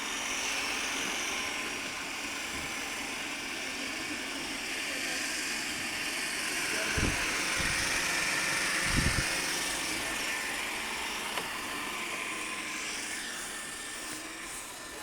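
Robot vacuum cleaners running: a steady whirring hiss of motors and brushes, with two low thumps about seven and nine seconds in.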